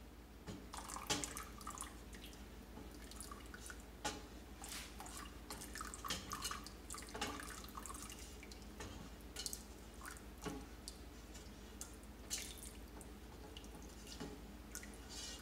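Hot milk in a stainless steel pot being stirred with a silicone spoon while a thin stream of citric acid solution is poured in to curdle it: faint, irregular liquid drips and small splashes mixed with light clicks of the spoon against the pot.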